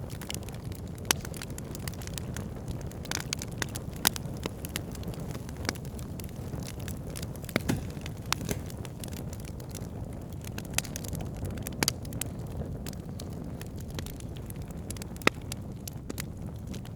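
Campfire burning: a steady low rumble of flames with constant irregular crackling of wood, and a few louder sharp pops scattered through.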